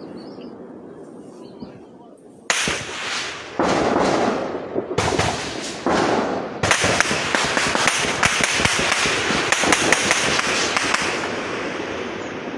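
Echoing bursts of gunfire: a burst about two and a half seconds in, more bursts a second and a second and a half apart, then near-continuous rapid shooting from about seven seconds to eleven, fading into its echo.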